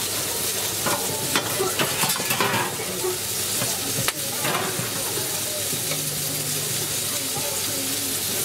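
Chicken sizzling on a hot griddle, a steady frying hiss, with a few short scrapes and clicks of a metal utensil about a second in and again around four seconds in.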